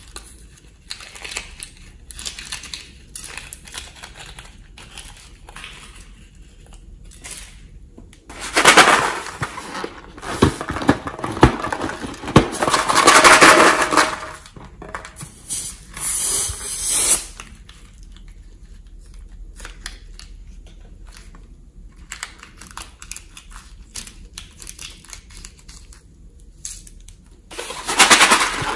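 Small clicks and rubbery handling of slime-filled balloons, then loud, noisy spurts about eight seconds in and again near the end as the balloons' contents are squeezed out and splatter into a glass bowl of slime.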